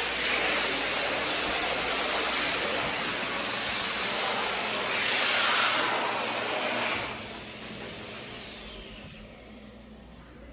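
A commercial restroom fixture flushing: a sudden rush of water that swells about five seconds in, then drops off around seven seconds in and fades away.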